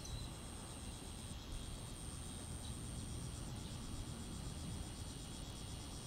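Insects singing: a steady high-pitched buzz with a few brief breaks, and a fast pulsing trill lower down, over a low outdoor rumble.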